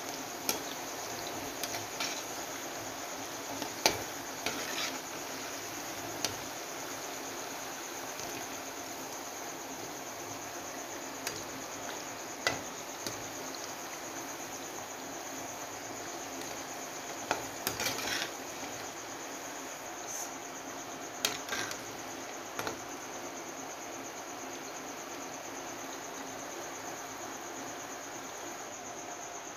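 Oil sizzling steadily as wheat-flour snack discs deep-fry in a metal kadai, with a perforated metal slotted spoon clinking and scraping against the pan now and then, loudest about four seconds in.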